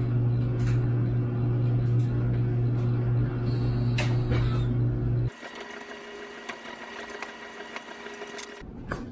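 A loud, steady low motor hum with a few clicks while a hydraulic floor jack is pumped. It cuts off abruptly about five seconds in, leaving quieter room sound with a faint high whine and light clicks.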